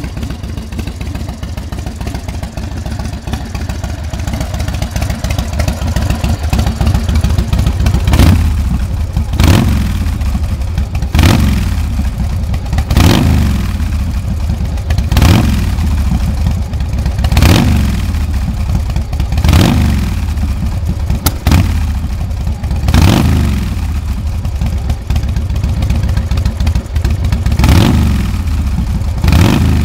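2006 Big Dog Ridgeback chopper's carbureted 117 cubic inch S&S V-twin running through a Supertrapp exhaust: it idles, then from about eight seconds in is revved in about a dozen quick throttle blips, roughly every two seconds, each dropping back to idle.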